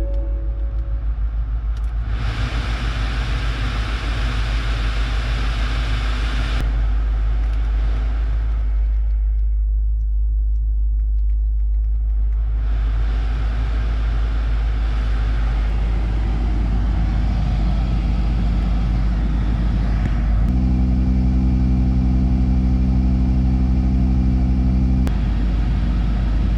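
A car's climate-control blower fan running over a steady low rumble. The air rush stops for a few seconds, then comes back, and near the end a steady pitched hum with overtones sounds for about four and a half seconds.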